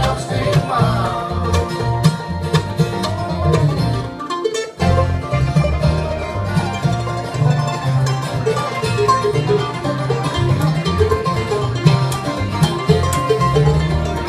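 Live bluegrass band playing: banjo, mandolin, acoustic guitars and upright bass, with a brief break in the playing about four and a half seconds in.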